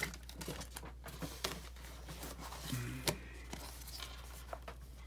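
Soft rustling of a plastic poly mailer and banded stacks of prop bills being handled, with scattered light taps and one sharper click about three seconds in.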